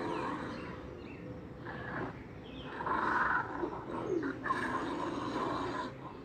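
A bear growling in several rough bursts, with birds chirping faintly in the background.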